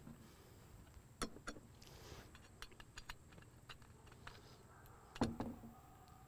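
Small metal outboard gear case parts clicking and knocking as they are handled and set down on a wooden table. Several light clicks, then a louder knock with a short ring about five seconds in.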